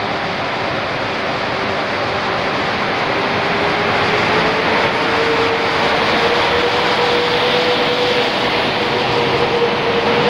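EP09 electric locomotive hauling a passenger train along the platform, its coaches rolling past with a steady rail rumble that grows gradually louder. A thin whine in the noise rises a little in pitch about halfway through.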